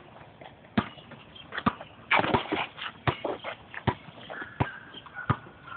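A basketball dribbled on asphalt: sharp bounces, one about every three-quarters of a second.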